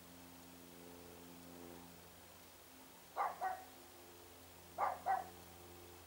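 A dog barking in two double barks, about three and five seconds in, over a low steady hum.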